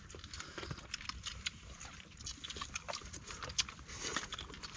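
Eating noises from several people eating raw sea urchin and rice with their hands: scattered small clicks and smacks, irregular and soft, over a light hiss.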